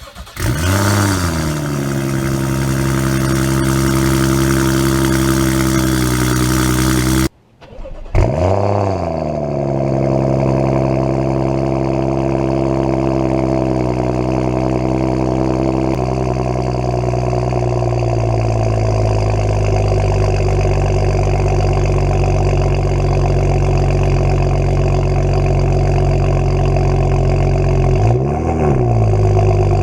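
A BMW 335xi's N55 turbocharged inline-six, with a catless downpipe, cold-starting: the revs flare up and settle into a steady high idle. After a brief break it starts again with a second flare. The idle steps down a little partway through, and there is a short rise and fall in revs near the end.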